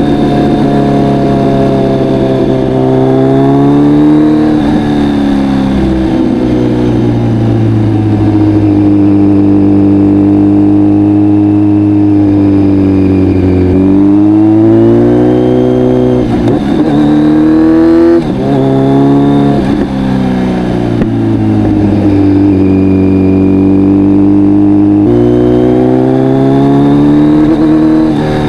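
Kawasaki Z900's inline-four engine through an Akrapovic full exhaust, loud, its pitch rising under acceleration and dropping back several times as the bike is ridden.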